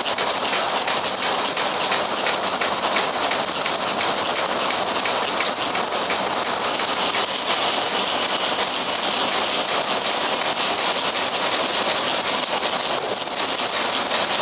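Steam-powered sawmill machinery running, heard as a steady, loud hiss with a fine crackle through it.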